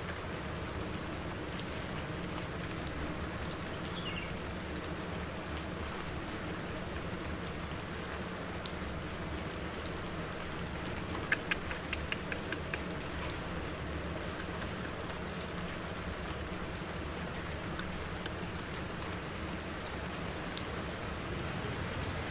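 Steady rain falling and pattering on surfaces, with single drops ticking now and then. About halfway through comes a quick run of sharp ticks.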